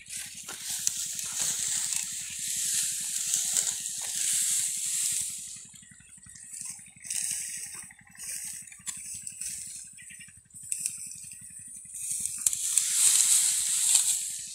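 Dry cut wheat stalks rustling and crackling as they are gathered by hand into a sheaf, in stretches that die down for a few seconds in the middle and pick up again near the end.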